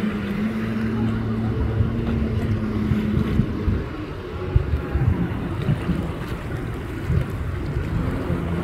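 Jet ski engine running at a steady pitch, fading out about three seconds in as the craft slows near the shore, with wind buffeting the microphone and sea water splashing. A lower engine hum comes back near the end.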